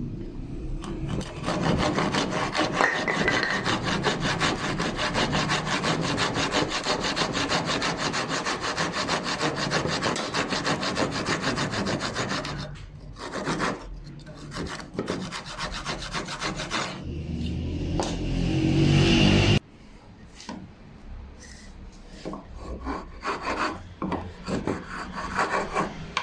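Wood being cut or rasped with a hand tool: a steady run of rapid scraping strokes for about the first half, then broken-up scraping and scattered knocks and handling sounds.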